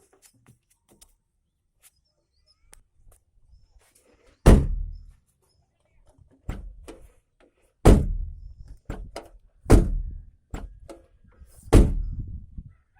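Maruti 800 car door being shut repeatedly: four heavy thuds with lighter knocks of the latch and handle between them.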